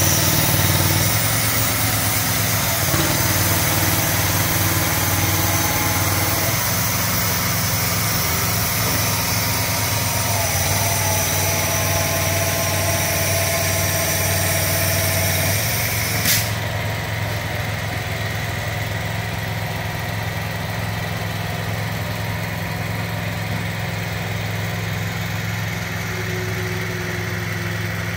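Heavy-haul semi truck's diesel engine running with a steady low hum as the rig creeps past towing a long multi-axle trailer, over a constant rushing noise. A single sharp click sounds about sixteen seconds in.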